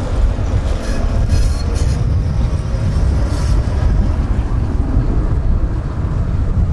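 Tram rolling past along street rails, with brief higher-pitched squeals or clanks in the first few seconds, over heavy low rumble from wind on the microphone.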